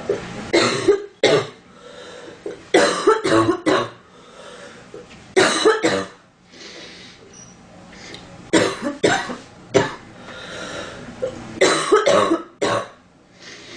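A girl coughing in five short fits of two or three dry coughs each, a few seconds apart.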